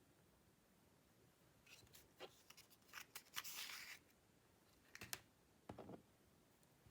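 Quiet handling noises: a run of light clicks and a brief rustle, then a few softer knocks near the end.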